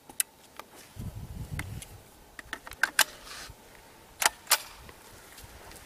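Beretta ARX 160 .22LR rifle's controls being worked, most likely the safety lever flicked on and off: a scatter of sharp, small clicks, with the two loudest close together about four and a half seconds in, and a brief low handling rumble between one and two seconds in.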